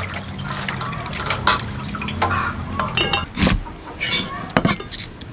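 Hands swishing greens in a metal basin of water. After about three seconds it gives way to a knife slicing garlic cloves on a wooden cutting board, a few sharp knocks.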